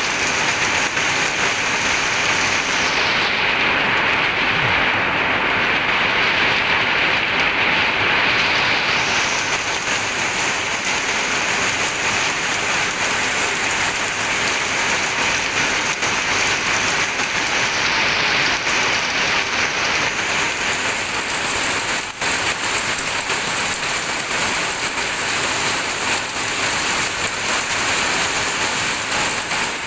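Steady rain falling: a dense, even hiss of many drops, with one brief dip in level about two-thirds of the way through.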